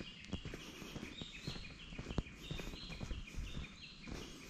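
Footsteps of a person walking, about two steps a second. Behind them runs a continuous high-pitched chirping that steps up and down in pitch.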